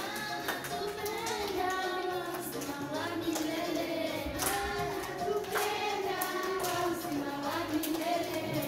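A group of young children singing a song together, clapping their hands along at irregular points.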